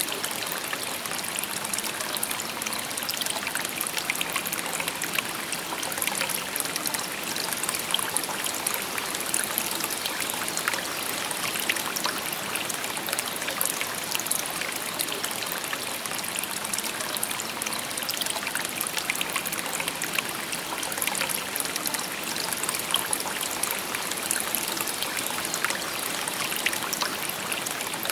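Shallow river babbling over stones: steady, bright trickling and splashing water.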